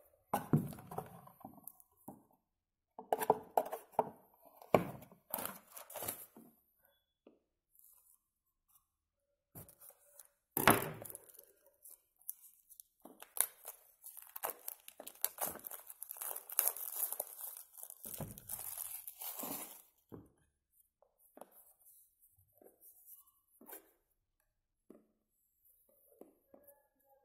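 Plastic shrink wrap being picked at, torn and peeled off a phone's retail box, with crinkling and crackling. Knocks and rustles of the box being handled come first, then a sharp knock about ten seconds in and a long stretch of steady tearing and crinkling before it dies down to faint handling.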